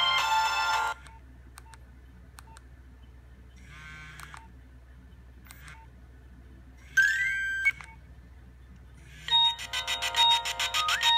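Nokia 1600 mobile phone ringtones: an electronic melody ends about a second in. After a quiet gap with a few faint clicks and a short rising electronic tone, the next ringtone starts near the end with fast, evenly repeated notes.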